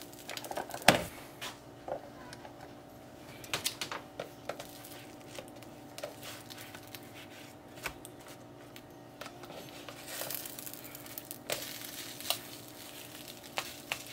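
Tortillas with egg and cheese cooking in an electric mini omelet maker: faint crackling with scattered light clicks and ticks over a steady low hum.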